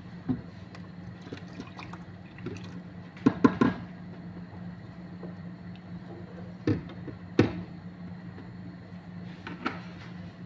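Liquid poured from a plastic jug into a large cooking pot, with sharp knocks from the jug and its cap being handled, the loudest cluster about three seconds in and two more around seven seconds. A steady low hum runs underneath.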